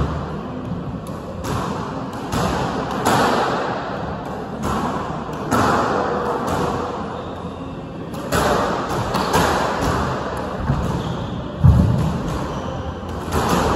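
Irregular sharp thuds of squash balls striking rackets and the court walls, each echoing off the hard walls, with a heavier thud near the end.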